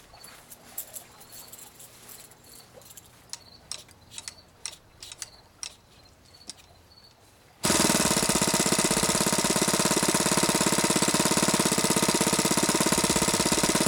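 Saito FA-180 four-stroke model aircraft engine, converted to gasoline with spark ignition and a Walbro carburettor, being hand-started: a few light clicks as the propeller is flipped by hand, then about two thirds of the way in the engine catches abruptly and runs steadily at idle, around 2000 rpm.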